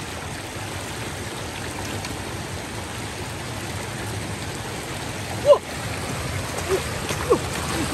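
Steady rush of floodwater flowing over the road. About five and a half seconds in there is one short, loud, sudden sound, and a few brief faint pitched sounds follow near the end.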